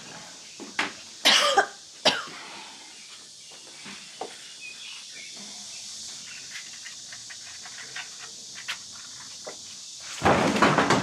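A woman with a bad cold coughing hard, three or four times in the first two seconds. Near the end comes a loud crash lasting under a second.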